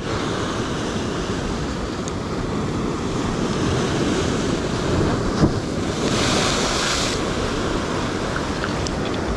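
Ocean surf surging and washing against the rocks, with wind buffeting the microphone. About six seconds in, a louder hissing wash lasts for about a second, and a single short knock comes just before it.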